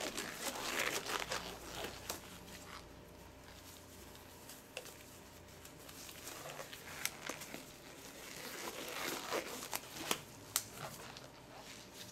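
Thin blue ESD-safe gloves rustling and crinkling as they are pulled on over the hands, with a few sharp little clicks.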